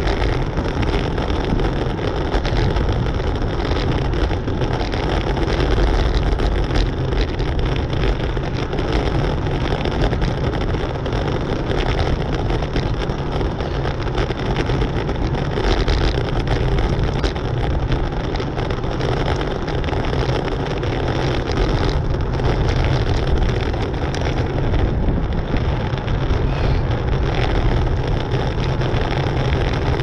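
Steady wind rush and low rumble on a bicycle-mounted camera's microphone while riding at about 20 mph.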